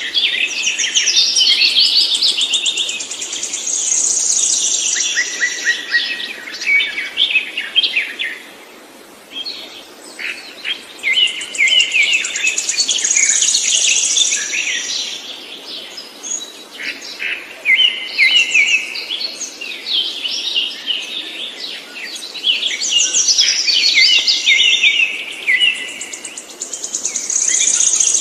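A songbird singing long, loud phrases of rapid, varied notes, in three bouts with short pauses between them.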